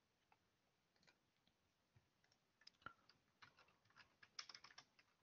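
Faint, scattered clicks, then computer keyboard typing in a quick run of keystrokes during the last couple of seconds.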